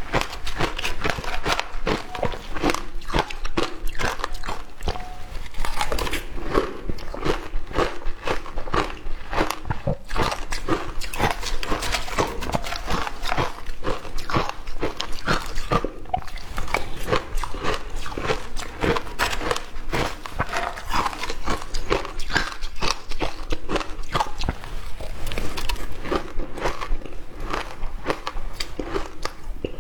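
Close-up crunching of frozen shaved ice being bitten and chewed, a dense run of sharp, irregular crackles with no pause.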